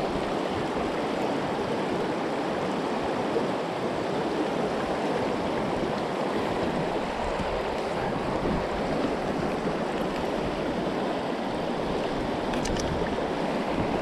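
Steady rush of a fast-flowing river running over rocks and riffles. A few faint clicks come near the end.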